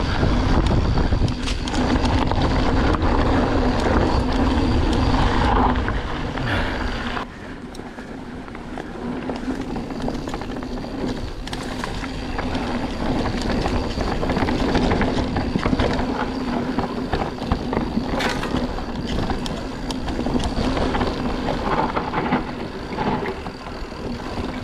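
Mountain bike descending a dirt forest trail: tyres rolling on the ground and the bike rattling and knocking over bumps, with heavy wind rush on the microphone for the first seven seconds or so, then quieter.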